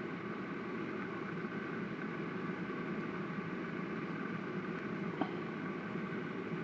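Steady mechanical hum, with one light click about five seconds in.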